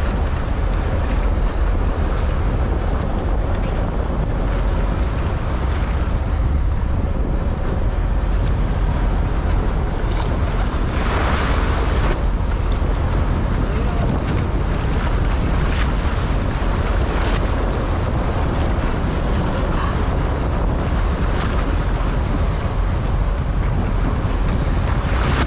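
Wind buffeting the microphone over a boat's low engine rumble and water churning along the hull, with a louder rush of water about eleven seconds in.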